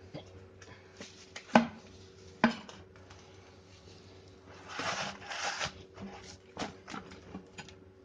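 The heavy steel shell of a scroll compressor being shifted by hand and stood upright: two sharp metal knocks a second apart, then a short scraping rustle and a run of lighter clicks and knocks.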